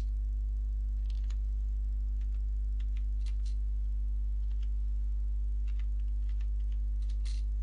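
Irregular keystrokes on a computer keyboard as a few letters are typed, about a dozen light clicks with uneven gaps, over a steady low hum.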